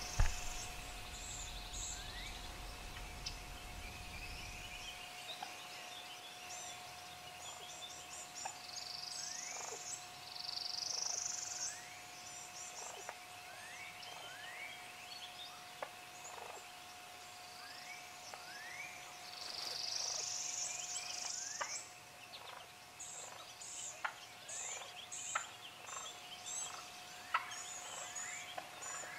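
Wild turkeys gobbling, with songbirds singing all around.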